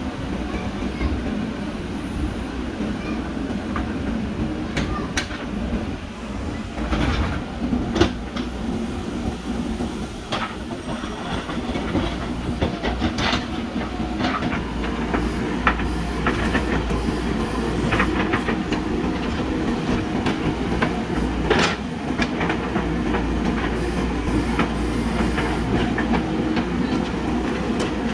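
JCB backhoe loader's diesel engine running steadily under digging work, with irregular sharp metallic clanks and knocks from the bucket and arm.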